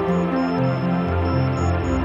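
Electronic synthesizer music from hardware synths: a sequenced bass line steps to a new note two or three times a second under held chord tones, with a faint high blip repeating on top and no drums.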